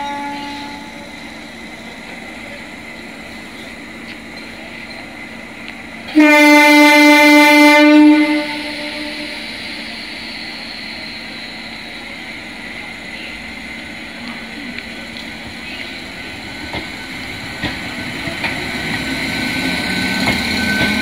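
Indian Railways EMU local train sounding one loud horn blast of about two seconds. The train then starts away, with a whine and wheel clicks building as it gathers speed.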